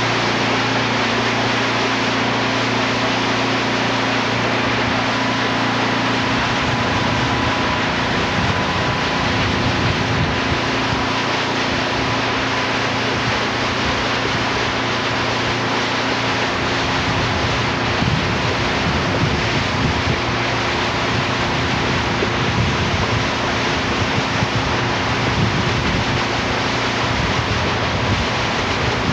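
Motorboat underway: a steady engine drone under the rush of its wake water along the hull and wind buffeting the microphone.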